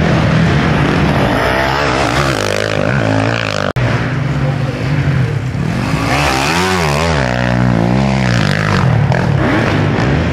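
500 cc motocross bikes racing past, engines revving up and down as the riders work the throttle through the turns, with more than one bike heard at once. The sound drops out for an instant a little under four seconds in.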